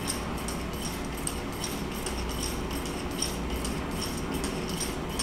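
Egg-beater drawing machine running: a steady whir and low hum with light ticks about three times a second as the whirling pens tap dots onto the paper.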